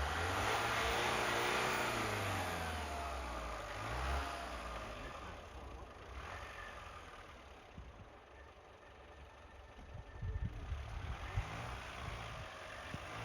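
Mitsubishi L200 pickup engine revving, its pitch rising and falling over the first four seconds before easing off; low, irregular thumps come in near the end.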